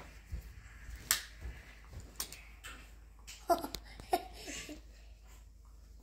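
Scattered light clicks and knocks of a small child handling a black plastic selfie-stick tripod, with a couple of brief child vocal sounds about three and a half and four seconds in.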